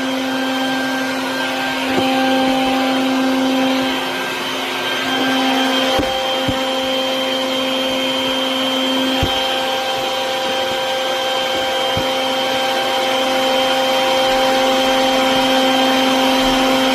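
A bee vacuum's motor runs steadily: a constant humming drone over a rushing air noise as it draws bees in through its hose. A few light knocks come through it, the loudest about nine seconds in.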